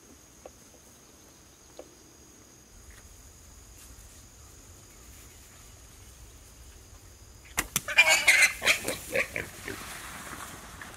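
Insects, likely crickets, trill steadily and high. About two thirds of the way in, a loud burst of rapid sharp cracks and scrapes lasts about two seconds and trails off.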